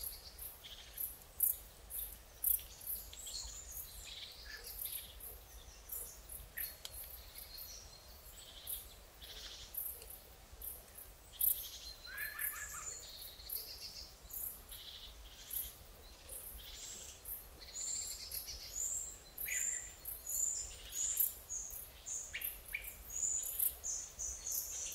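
Several songbirds calling and singing over one another: a scatter of short, high chirps and trills. In the last third, one bird repeats a short, high note over and over, more than once a second.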